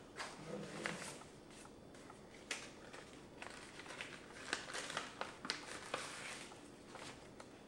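Photo prints and paper handled at a table: soft rustling and scattered light clicks and taps as the pictures are shuffled through.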